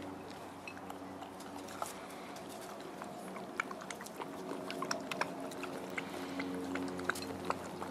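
Puppies lapping from a water bowl and chewing and scuffling, giving a scatter of small wet clicks and smacks that grows busier about halfway through. Soft background music with sustained notes plays underneath.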